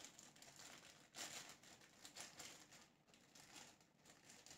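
Faint crinkling of clear plastic packaging bags as baby clothes are handled and pulled out of them, in a few soft, irregular bursts.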